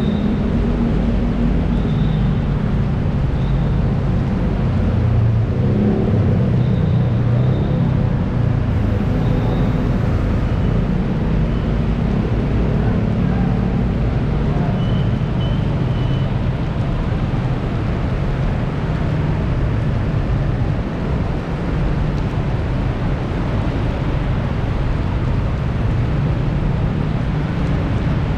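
Heavy rain falling: a loud, steady, unbroken rush with a deep low rumble underneath.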